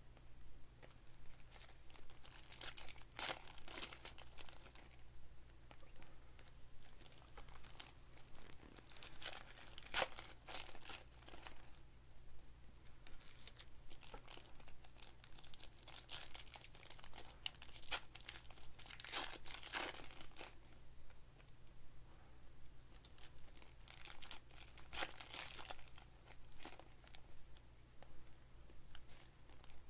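Foil trading-card pack wrappers crinkling and tearing as packs are ripped open by hand, with cards slid and shuffled in between; an irregular run of crackles, loudest about ten and twenty seconds in.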